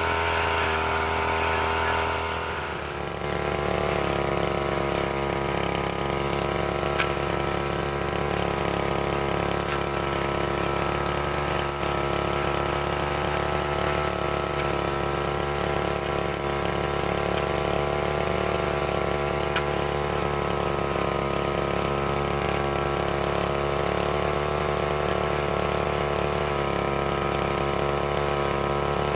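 STIHL FR3001 backpack brush cutter's small engine running at higher speed, dropping back about three seconds in, then idling steadily.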